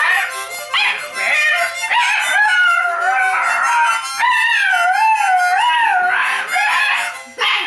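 A dog howling along to a harmonica: a run of long howls that waver up and down in pitch, the longest held about halfway through, with the harmonica playing underneath.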